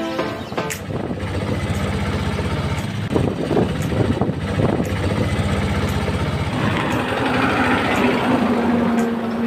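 Auto-rickshaw's small engine idling with a fast, even chug. In the last few seconds an engine note rises along with road noise.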